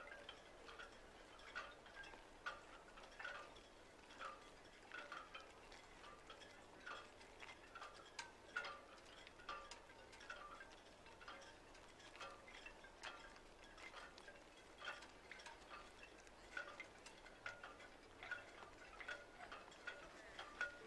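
Faint, sparse chime-like notes with ticking attacks, about one or two a second at uneven spacing: a quiet background music bed.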